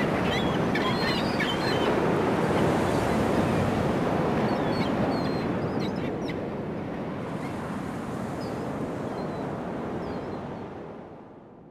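Ocean surf washing steadily, with short high bird calls scattered over it, fading out near the end.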